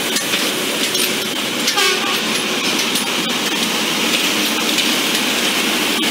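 Plasser & Theurer track maintenance machine running along the rails, a steady loud mix of engine and wheel noise, with a brief rapid rattle about two seconds in.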